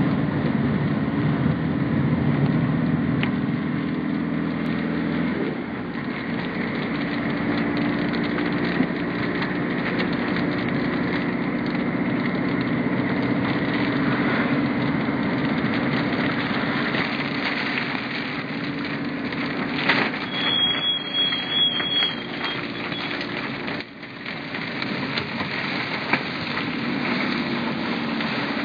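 Car driving on a wet road in heavy rain: steady engine and tyre noise, with rain hitting the windscreen and roof. A brief high tone sounds about two-thirds of the way through.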